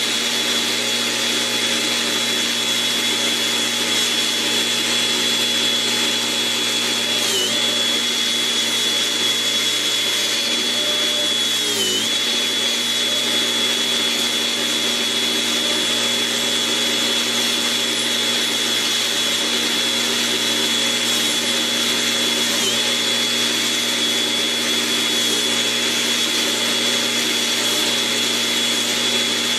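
Angle grinder running steadily while a painted steel tube is pressed and turned against its abrasive wheel, grinding the paint down to bare metal. A steady high whine that sags briefly in pitch as the wheel is loaded, about seven and twelve seconds in and again later on.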